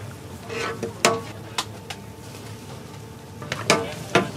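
A metal spatula scraping and clanging against a large steel wok as meat in sauce is stirred, with about five sharp ringing strikes, the loudest about a second in. A steady low rumble runs underneath.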